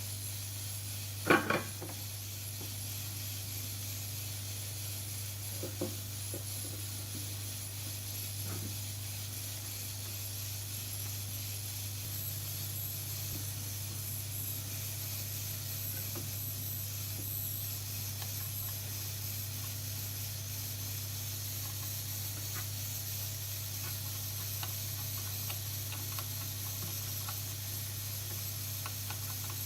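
Steady low electrical hum with a constant background hiss, broken by one loud sharp click just over a second in and a few faint clicks later.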